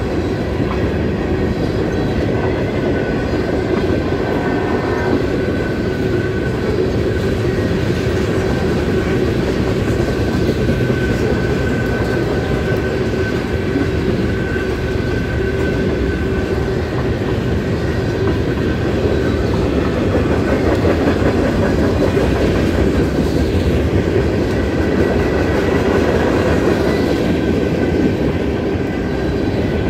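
Freight cars of a Norfolk Southern train rolling steadily past through a road grade crossing, their wheels clacking over the rail joints, with a steady high tone sounding over the rumble.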